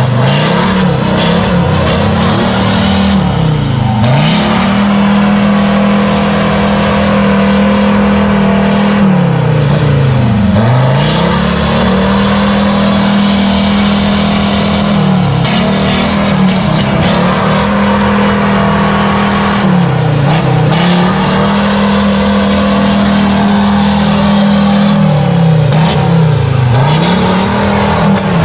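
Off-road 4x4's engine held at high revs. Its pitch drops and climbs straight back several times, over a steady rushing noise.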